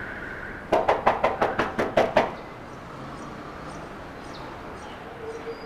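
A quick run of about nine knocks on a wooden front door, lasting about a second and a half.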